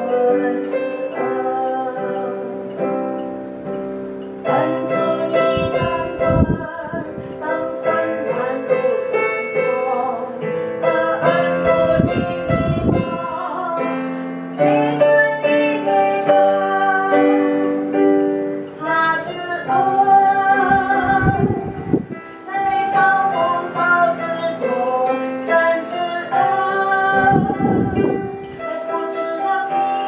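A woman singing a slow song with piano accompaniment.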